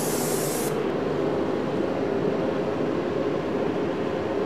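Aerosol brake parts cleaner spraying in a steady hiss that cuts off under a second in, followed by a steady background drone.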